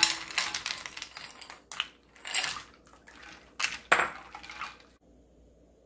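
Ice cubes and a wooden spoon clinking against a glass bowl as iced broth is stirred: a run of sharp clinks with some swirling water, stopping about five seconds in.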